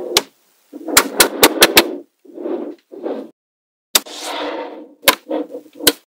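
Small magnetic balls clicking together as strips of them are snapped into place, in quick runs of sharp clicks with short rattling and rustling stretches between. The sound comes in short bursts with dead silence between them.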